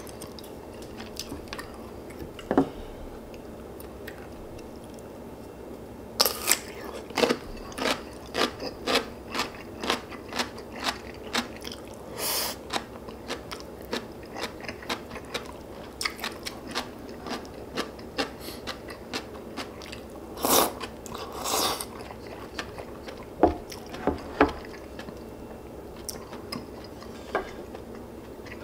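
Close-miked chewing with a run of crisp crunches, about one or two a second, starting about six seconds in, with a few louder bites among them.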